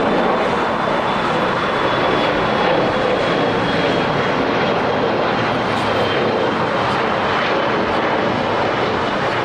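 Jet airliner engines running, a steady loud rush with a faint high whine that sinks slightly in pitch.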